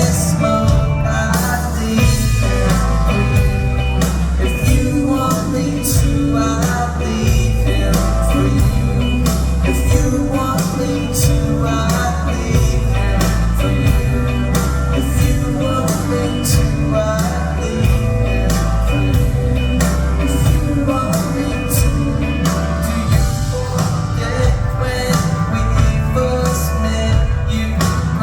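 A live band playing a song, with a sung vocal over guitars, a heavy bass line and a steady drum beat.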